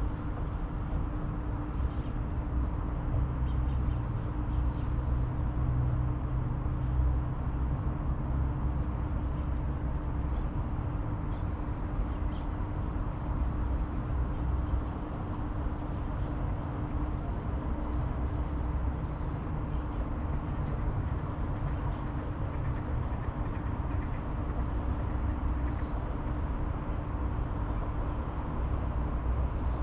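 Outdoor ambience beside a river running through a city: a steady low rumble of distant traffic, with a constant hum that fades out about halfway and a few faint bird chirps.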